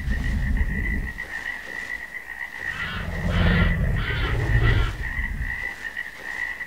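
Low, pulsing croaking growls that swell and fade every few seconds, with four short rasping bursts in the middle, over a thin steady high-pitched drone.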